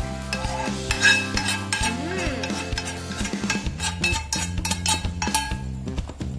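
A metal spoon and a spatula scraping and knocking against a frying pan as a tomato sauce is tipped out into a pot of boiling chicken broth, with a light sizzle. Background music plays underneath.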